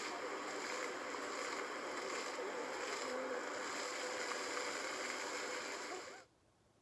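Public fountain water splashing steadily, with children's voices and laughter faint over it as they play. The sound cuts off suddenly about six seconds in.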